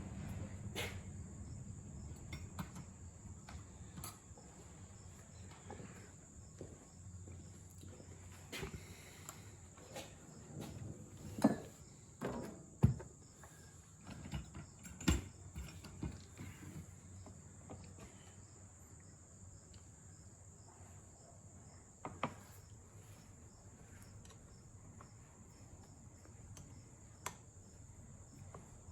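Crickets chirping steadily under scattered clicks and knocks of hand tools on an outboard motor, with two sharper knocks near the middle.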